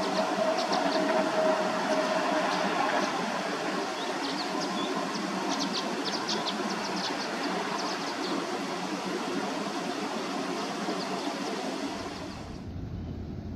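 Freight train rolling past, steel wheels running on the rails with many short high squeaks, growing gradually quieter. About a second before the end it gives way abruptly to a low rumble.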